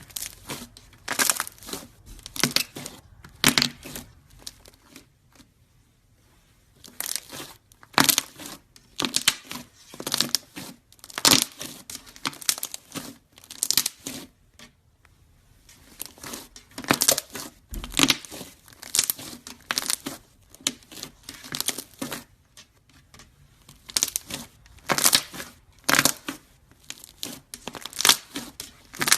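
Close crackling and crunching in irregular bursts from a material being pressed and broken apart. There are brief pauses about five seconds in and again around the middle.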